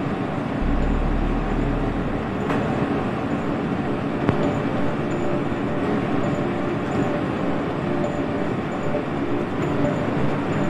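Boat engine running steadily under a rushing wash of wind and water noise, heard from on board a vessel at sea.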